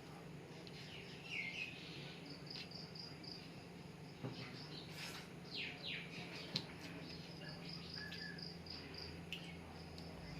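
Insects chirping in short, evenly repeated high pulses, with a few quick bird chirps, over a low steady hum. There are a couple of brief clicks.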